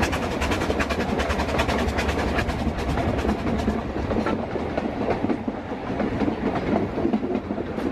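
Narrow-gauge train running, heard from an open carriage: wheels and coaches clattering rapidly over the track, with the locomotive working up a slight incline. The clatter is densest for the first few seconds and thins out about halfway through.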